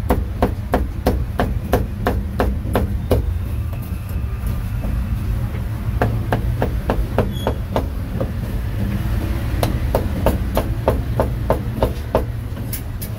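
Cleaver chopping meat in quick, even strokes, about three or four a second, easing off for a few seconds around the middle before picking up again, over a steady low rumble.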